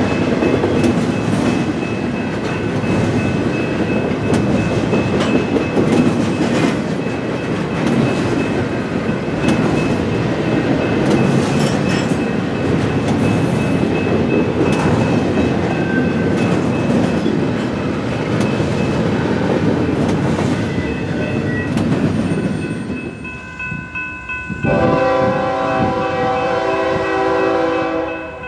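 Double-stack intermodal freight cars rolling past close by, a steady rumble and clatter of steel wheels on rail. Near the end, a locomotive air horn sounds one long chord of several tones.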